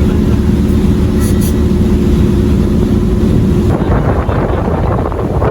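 Boat engine running steadily under way, a loud low drone. From a little over halfway in, rushing water and wind noise rise over it.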